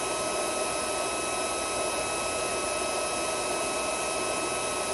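Handheld 1000 W magnetic induction heater running steadily with its flexible coil around a rusted nut that is now red hot: a continuous whir with a thin steady high whine.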